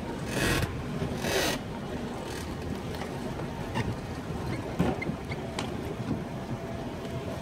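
Motorboat running under way: a steady low rumble with wind noise. Two short rushing swishes come about a second apart near the start.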